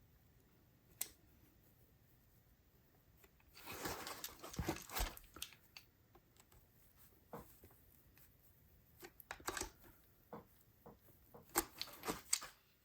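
Quiet clicks and scraping of small plastic parts as the body shell of an HO-scale model steam locomotive is pried and worked loose. There is a single click about a second in, then a longer stretch of scraping and rustling, then scattered sharp clicks in the second half.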